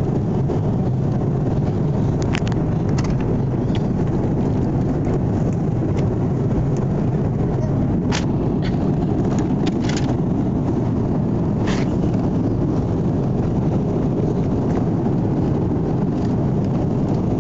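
Steady drone of an airliner cabin in flight, the engines and airflow making an even low noise, with a few faint clicks.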